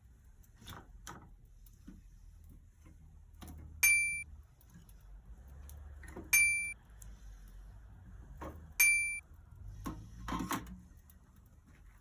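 Metal struck several times, each strike ringing briefly with a few clear, high tones, about every two and a half seconds. Duller knocks come in between, with a cluster of them near the end.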